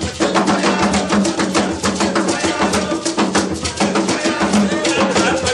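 Lively dance music driven by fast, dense drumming and percussion, with a steady beat.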